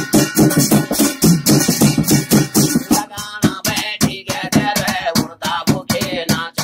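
Garhwali jagar song: drums beating a fast, even rhythm, and from about three seconds in a man's voice singing with a wavering pitch over the drumming.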